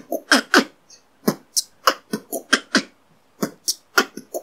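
Human beatboxing: a mouth-made drum pattern of kick drums, rimshots and outward K snares ("B tK BkKK"), including a quick double-rimshot combo. The strokes come about four a second, with a short gap about three seconds in.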